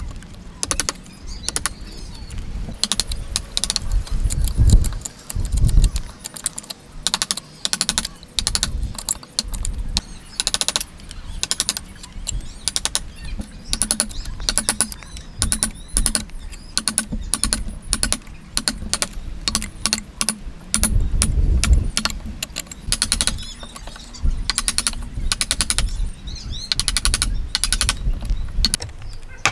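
Wood chisel paring and chopping into a timber beam: an irregular run of sharp clicks and cracks as the blade cuts and splits off chips, with a few dull thumps among them.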